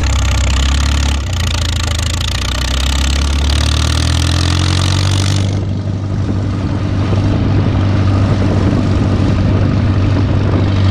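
McCormick-Deering Super M tractor's four-cylinder gasoline engine running under way, its pitch climbing over the first few seconds as it picks up speed, then holding steady. A loud hiss over the engine stops abruptly about halfway through.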